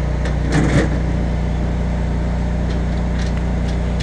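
Kohler 12RESV 12 kW standby generator running with a steady hum, waiting out the roughly three-minute check of restored utility power before the transfer switch hands the load back to the grid and the unit shuts down. A brief sharp noise comes about half a second in.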